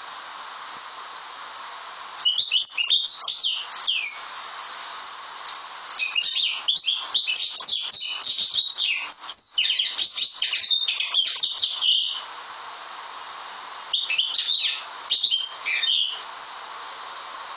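Common linnet singing: quick twittering phrases in three bouts, about two seconds in, a long run from about six to twelve seconds, and again near the end, over a steady background hiss.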